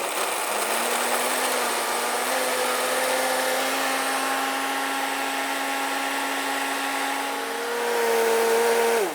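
HealthMaster blender's motor running steadily while blending cake batter in its pitcher, its pitch stepping up as the speed is raised. Near the end it runs higher and louder, then starts to wind down.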